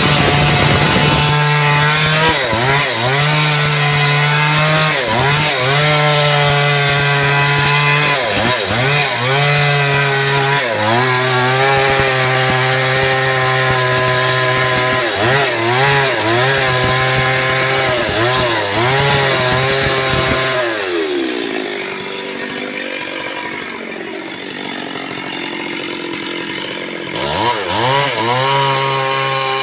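Stihl chainsaw cutting through a thick wooden slab at full throttle, its engine note dipping again and again as the chain bogs in the wood and then picking back up. About two-thirds of the way through, the engine note falls away and a quieter rough noise follows for several seconds. High revs return near the end.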